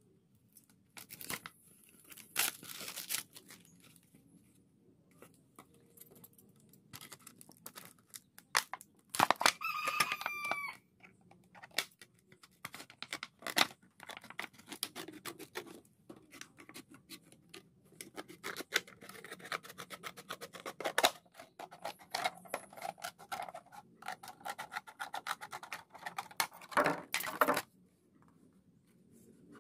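Scissors snipping through a thin clear plastic soda bottle, the plastic crackling and crinkling as it is cut and turned in the hands: many short, sharp snips and rustles. One brief pitched squeal about ten seconds in.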